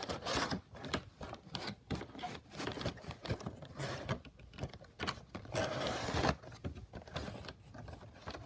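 A Funko Pop vinyl figure and its cardboard box being handled and repacked: irregular taps, clicks and scraping, with a longer rustle about four to six seconds in.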